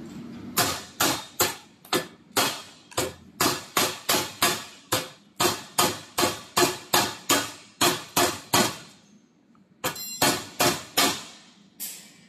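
A hand hammer striking steel studs welded to a steel plate: a steady run of about twenty sharp metal-on-metal blows, two to three a second, then a pause of about a second and a few more, one of which rings. This is a knock-off test, hammering the studs over to check that the welds hold.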